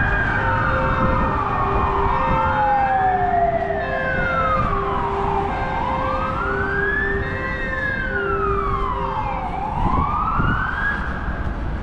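Fire engine sirens: a wailing siren rises and falls about every four seconds, overlapped by a second wail. Underneath runs a lower two-note siren alternating about once a second, over the rumble of vehicle engines.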